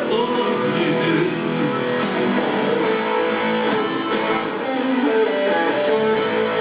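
Live band music: guitar strummed and picked in an instrumental passage of a song, with no singing.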